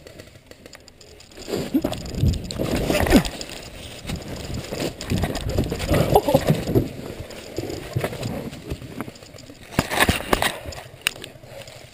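Footsteps running and scrambling through dry fallen leaves, with the rustle and brush of clothing and gear. Louder scuffles come about three seconds in and near the end.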